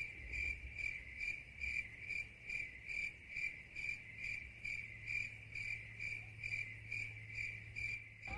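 A cricket chirping in a steady, even rhythm, about two chirps a second, over a faint low hum.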